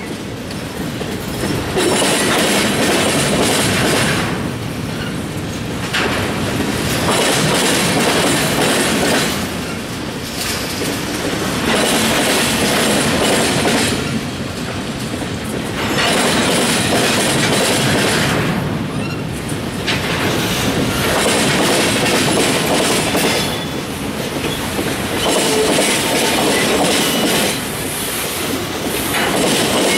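Freight cars, covered hoppers and boxcars, rolling past at close range, their wheels clicking over the rail joints. The rolling noise rises and falls in loudness every four to five seconds.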